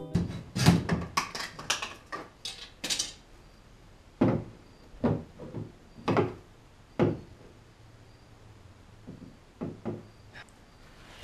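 Mallet blows knocking a PVC pipe into a mounting hole on a plastic kayak. A quick run of knocks comes first, then single blows about a second apart, and fainter ones near the end. The 1.5-inch pipe is too big for the hole and won't go in.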